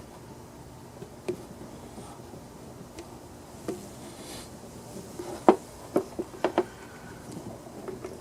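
A few light clicks and taps of small parts being handled while a fuel filter is fitted onto a chainsaw's fuel line, over a faint steady hiss; the sharpest click comes past the middle, followed by a quick cluster of smaller ones.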